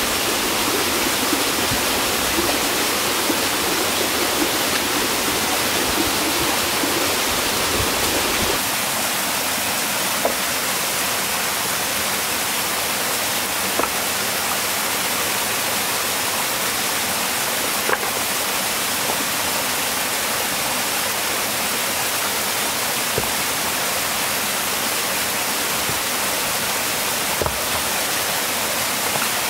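Steady rushing water noise, a loud even hiss with a few faint ticks; the lower rumble drops away about eight and a half seconds in.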